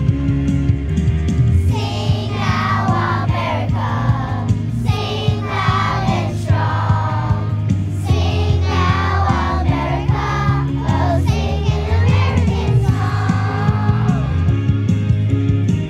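A live band playing a song, with steady bass notes and guitar underneath. A singing voice carries the melody from about two seconds in until near the end.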